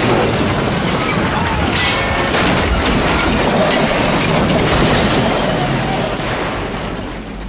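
Crash of a heavy train ramming and exploding through a tank: a dense rumble with metal clatter that slowly dies away.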